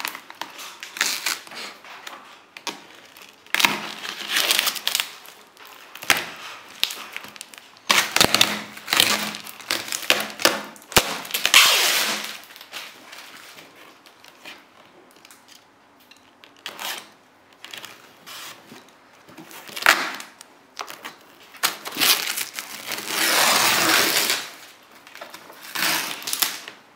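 Plastic stretch-wrap being cut with a utility knife, then foam packing and bubble wrap handled inside a cardboard box: irregular bursts of rustling and scraping with a few sharp clicks.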